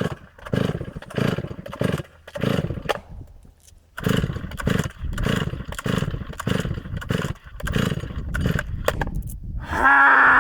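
Stihl MS 660 chainsaw being pull-started over and over, the recoil starter cranking the big two-stroke in quick rasping pulls without it catching: a hard-starting saw. Near the end comes a short, louder burst with a steady pitch.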